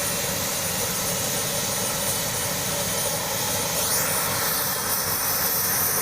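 Helicopter running: turbine engine and rotor noise, steady, with a high-pitched whine held throughout.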